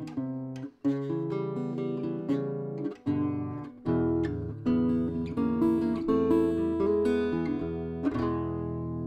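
Small-bodied acoustic guitar played in picked chords and single notes, the last chord struck near the end and left ringing. It is recorded through a small Extinct Audio BoRbon ribbon microphone; about four seconds in a Marconi AXBT ribbon microphone is blended in and the bass gets fuller.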